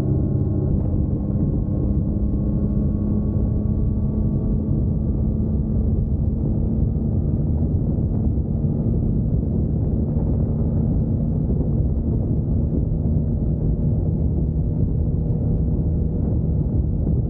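2021 Yamaha MT-09's inline-three engine running at a steady pace under way, its note holding level.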